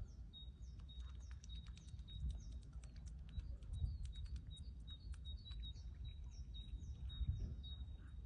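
Small birds chirping and twittering in quick succession: many short high, falling notes, a repeated short piping note and sharp clicks, over a low steady rumble.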